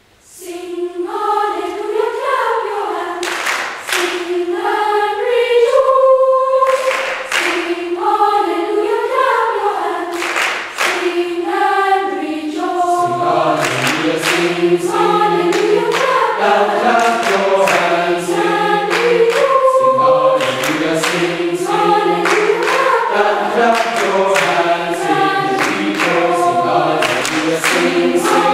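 Boys' choir singing an upbeat song in parts, with rhythmic hand claps on the beat. A lower voice part joins about halfway through.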